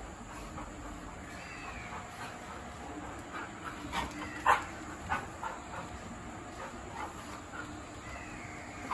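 A Labrador retriever and a Chippiparai sighthound play-fighting, giving a cluster of short sharp barks and yips, the loudest about four and a half seconds in, with a few fainter ones after.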